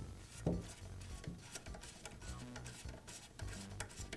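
Screwdriver unscrewing a carbon-brush cap from a Makita table saw's motor housing: light, irregular scraping and clicking as the blade turns in the cap's slot.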